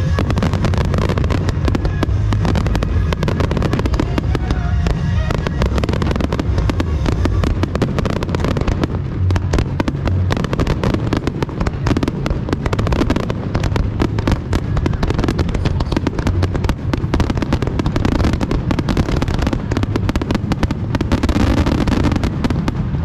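Fireworks finale: a dense, unbroken barrage of shell bursts and crackling, bang after bang overlapping with a constant low rumble.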